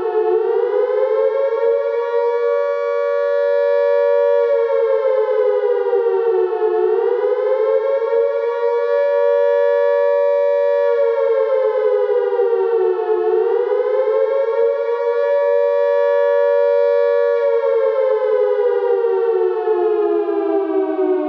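Civil-defense air-raid siren sounding the attack signal: a wailing tone that rises, holds level for a couple of seconds, then falls, about every six and a half seconds, with a long slow fall beginning near the end.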